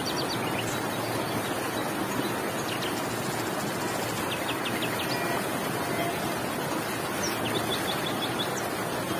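River rapids rushing over rocks, a steady water noise. A bird chirps over it in short runs of quick high notes, three times.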